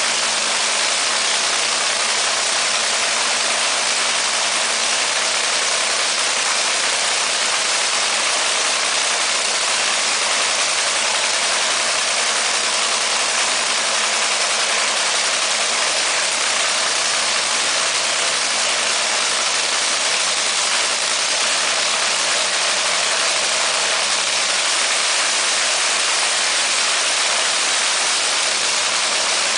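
Top Fuel dragster's supercharged Hemi V8 running on nitromethane, idling loud and steady during a pit warm-up.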